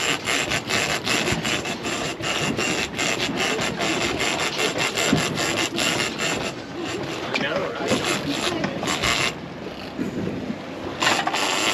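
Fishing reel being cranked hard, its gears and clicker ratcheting in a fast, rapid rhythm, with short pauses in the second half.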